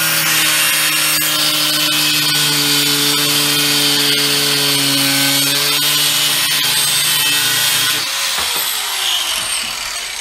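Electric angle grinder running and cutting through a metal clip on a fuel-line fitting, throwing sparks. About eight seconds in it is switched off and winds down.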